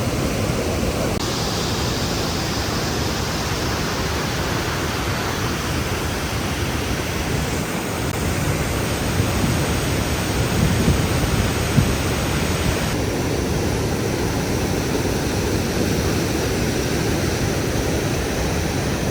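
Toce Waterfall's falling water, a loud, steady rush. Its tone changes abruptly about a second in, again around eight seconds, and about thirteen seconds in.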